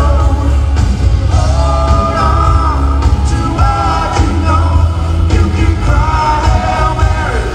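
Rock band playing live through a concert PA: electric guitars, drums and keyboard under a sung lead vocal with long held notes, and a heavy bass.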